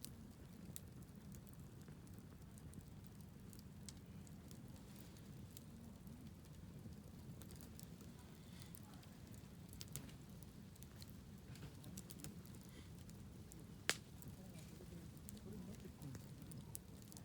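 Wood campfire crackling faintly: scattered small pops and snaps over a low steady rumble, with one sharp, louder pop about fourteen seconds in.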